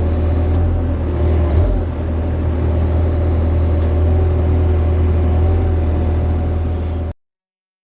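Excavator's diesel engine running steadily at a low pitch, wavering briefly about a second and a half in; the sound cuts off suddenly about seven seconds in.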